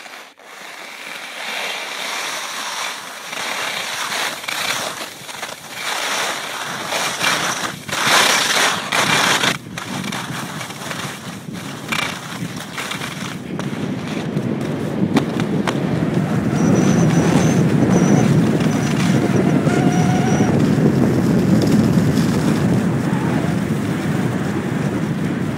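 Skis scraping and chattering over hard-packed snow during a fast downhill run, with wind buffeting the microphone. The wind rumble grows heavier from about halfway through as the speed builds.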